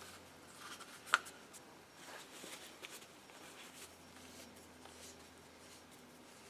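Faint rustling of paper towel being handled, with one sharp knock about a second in.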